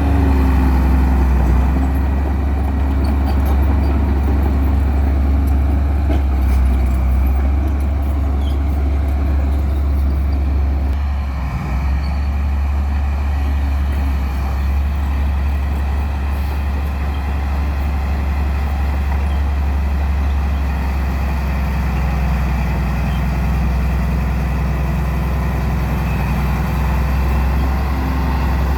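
A heavy vehicle's engine running steadily with a deep, continuous drone, briefly dipping about twelve seconds in.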